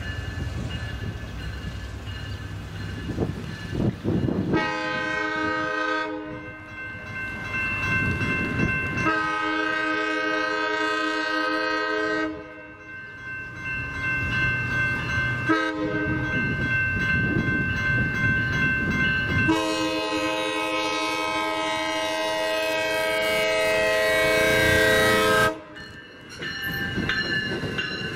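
Chord horn of an approaching Amtrak California bilevel train, cab car leading, sounding several blasts for the grade crossing. The last blast is held about six seconds and cuts off sharply near the end, over the rumble of the approaching train.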